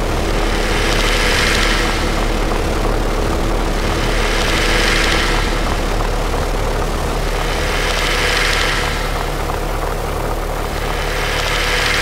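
Experimental noise music: a dense, steady droning wash over a low hum, with a band of hiss that swells and fades about every three and a half seconds.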